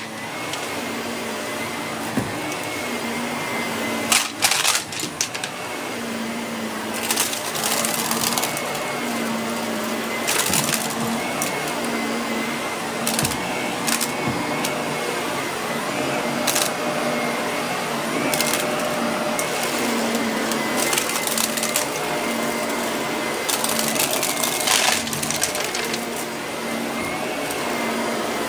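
Shark upright vacuum running steadily on carpet, a constant motor hum and high whine, with short sharp crackles and rattles every second or few as bits of debris are sucked up.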